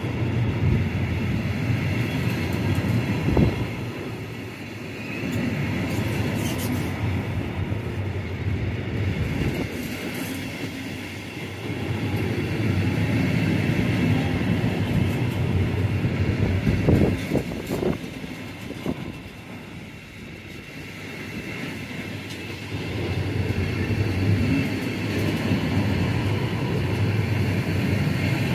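Freight train passing on the line, a continuous rumble of wagons on the rails that swells and eases, with a few sharp knocks.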